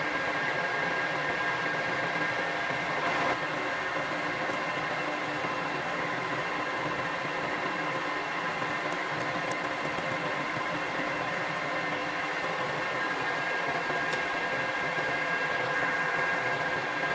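Metal lathe running steadily, its motor and spindle gearing giving an even hum with a steady whine, with a brief louder scrape about three seconds in.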